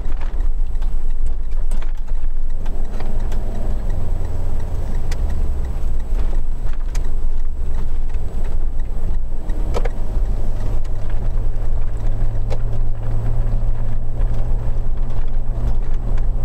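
Car being driven, heard from inside the cabin: a steady engine hum over a low road rumble, with the engine note changing pitch a couple of times as the speed changes.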